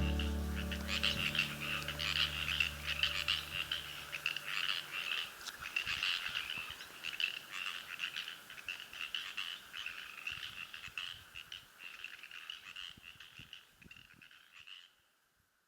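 A chorus of many frogs calling, a dense run of rapid croaks that slowly fades away and stops shortly before the end. The low notes of a piece of music ring out and die away in the first few seconds.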